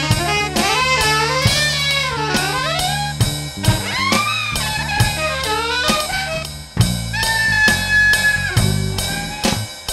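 Live jazz-funk jam: a plucked electric bass groove and an electronic drum kit keeping a steady beat, under a saxophone line that bends and slides in pitch. About seven seconds in, a long held high note sounds over a heavier bass figure.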